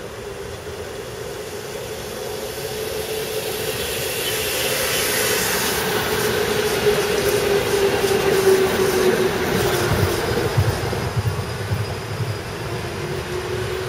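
Tram approaching and passing close by. It runs with a steady whine that grows louder, then slides slightly lower in pitch as it goes past, and the wheels clack over rail joints during the pass.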